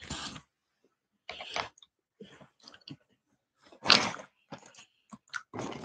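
Handling noise from the camera being moved and set in place: a few short rustles and knocks, the loudest about four seconds in.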